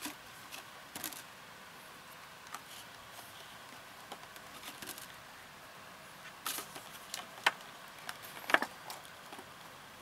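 Small handling noises as wire leads are twisted tight around copper wire at the rim of a thin clear plastic tray: scattered light clicks and crinkles, with sharper clicks about a second in and several more in the second half.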